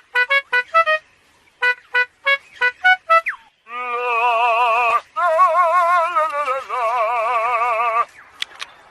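Male superb lyrebird mimicking a car alarm: a run of short electronic-sounding beeps, then about four seconds of a fast wavering siren tone that changes pattern partway through.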